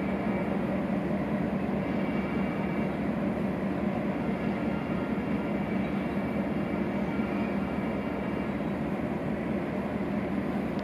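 EMD F-unit diesel locomotive's 567 prime mover running, a steady low drone with no change in pitch.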